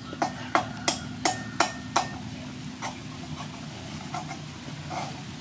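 A cleaver chopping cooked sea snail meat on a wooden chopping board: six sharp chops, about three a second, then a few lighter, scattered knocks.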